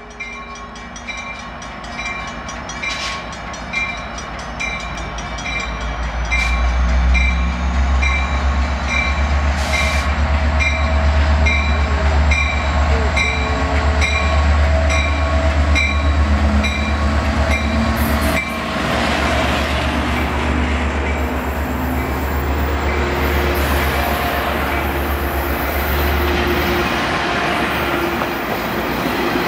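Metrolink diesel locomotive pulling out and passing close by, its engine rumble building over the first few seconds to a loud, steady throb. A bell rings steadily, about once every two-thirds of a second, until roughly two-thirds of the way through. Then the rushing and clatter of the bilevel coaches' wheels on the rails takes over as they roll past.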